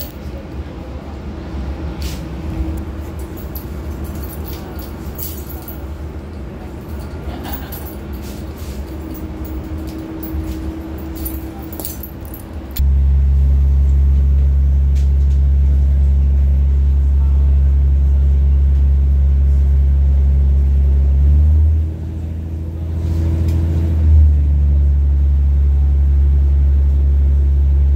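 Interior of an Irish Rail 2800 Class diesel railcar on the move: a running rumble with light rattles and clicks, then about halfway through a loud, steady low drone from the train comes in suddenly. The drone drops away briefly near the 22-second mark and comes back about two seconds later.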